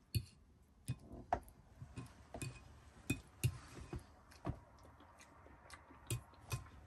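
Cutlery clinking and tapping lightly against a plate: a dozen or so faint, irregular clicks as food is picked up and eaten.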